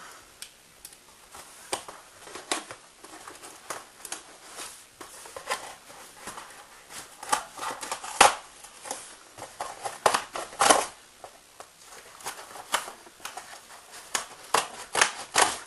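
A cardboard mailer being slit open with a Leatherman multitool's knife blade and the cardboard torn apart by hand: a run of irregular scraping, cutting and ripping sounds, with the loudest rips about halfway through.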